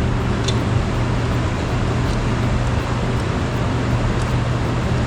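Steady low hum under a constant rushing noise, with no change in pitch or level.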